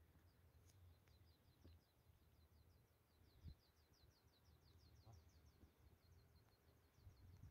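Near silence on an open summit: a faint low wind rumble, with a faint high-pitched chirping trill of quick, evenly repeated notes, about six a second.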